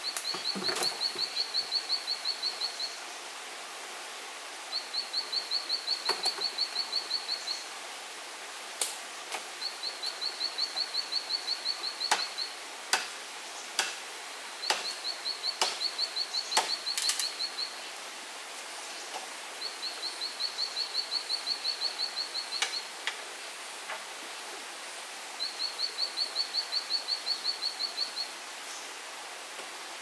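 A high, rapidly pulsed animal call of about five or six pulses a second. It comes in runs of about three seconds and repeats every five to six seconds. Between the runs there are scattered sharp knocks of wooden poles being handled on a pole frame.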